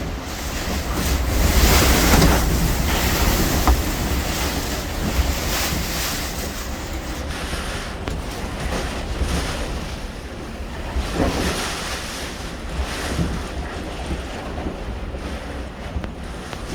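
Hurricane-force wind rushing in surges, buffeting the microphone with a deep rumble, strongest about two seconds in and easing a little in the second half, with a few brief knocks.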